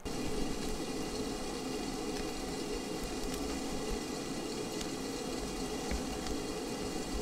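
Stovetop kettle heating on a gas stove's burner: the steady hiss and rumble of water heating in the kettle, with scattered small ticks.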